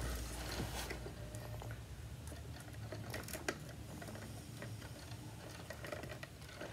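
Light, scattered clicks and taps of clear acrylic rods and holder pieces being handled and fitted at the top of a rotating sunglasses display, with a low rumble of handling in the first second.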